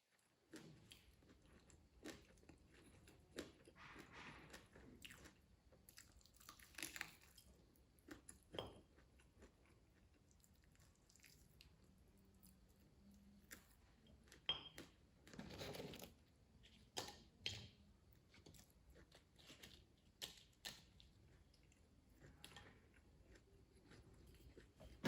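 A person quietly chewing and crunching food close to the microphone: scattered soft crunches and mouth clicks, with a longer, louder spell of chewing about fifteen seconds in.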